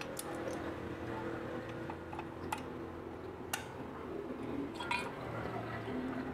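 A few sharp metallic clicks of pliers working on the metal valve body of an LPG stove burner, about a second apart, with a short cluster of clicks near the end, over a faint low hum.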